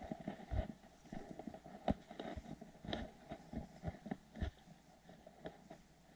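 FURminator deshedding tool raking through a fluffy Welsh corgi's thick coat: a run of short, irregular scratchy strokes, with a louder stroke about two seconds in.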